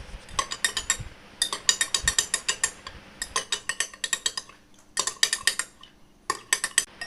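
A spoon stirring lime juice and sweet soy sauce, clinking rapidly against the sides of the container in quick runs of several clinks a second, broken by short pauses. This is the mixture being stirred until it is evenly blended.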